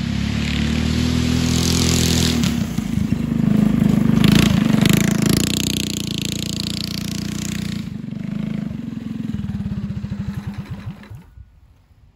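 Go-kart's 212cc single-cylinder engine running under throttle as the kart drives up, loudest about four seconds in, then dropping to a slow, pulsing idle and shutting off about eleven seconds in.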